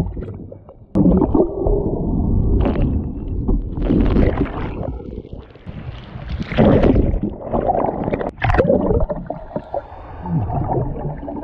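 Muffled underwater rushing and bubbling of churning surf, coming in irregular loud surges a second or two long.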